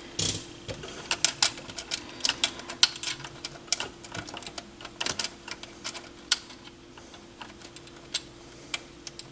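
Irregular small clicks and taps of turntable parts being handled and fitted back together, over a faint steady hum.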